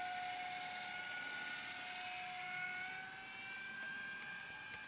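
Radio-controlled Horten flying-wing model's motor whining steadily in flight, dipping a little in pitch and rising again about three seconds in, slowly fading.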